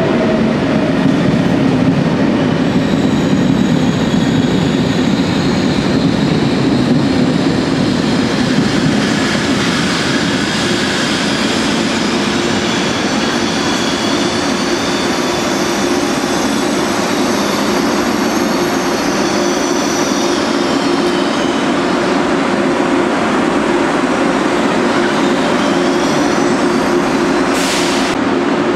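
Frecciarossa high-speed train moving slowly through the station, wheels squealing over a steady rumble; the squeal fades after about twenty seconds, leaving a steady hum. A short hiss sounds just before the end.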